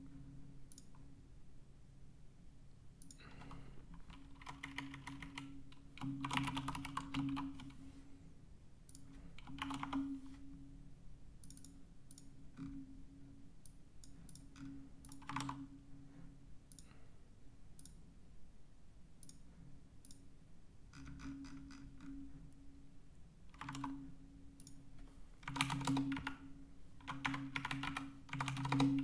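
Computer keyboard typing in short bursts of keystrokes separated by pauses, over a steady low hum.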